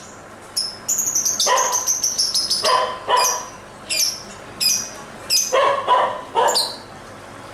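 Lovebird calling: a quick run of shrill, sharp chirps, some high and thin, some harsher and fuller, coming in bursts every half second or so.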